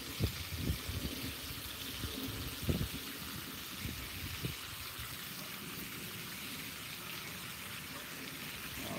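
Raw bacon strips sizzling on a hot Blackstone flat-top griddle, a steady hiss, with a few soft knocks from handling in the first half.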